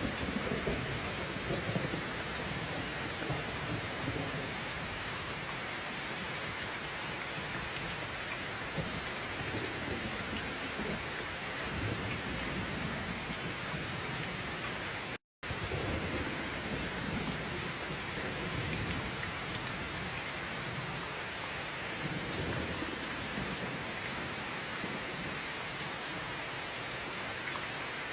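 Steady heavy rain falling on surfaces, with low rolling thunder rumbling in the background, strongest just at the start and again just after the middle. About halfway through the sound cuts out completely for a split second.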